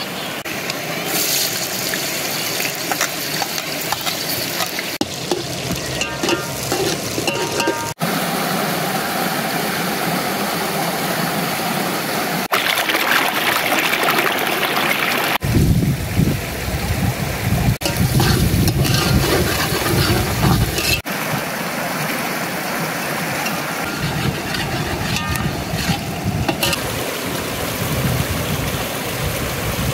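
Shallow river rushing steadily over stones, broken by several abrupt edits. A deeper rumble joins the water for a few seconds in the middle.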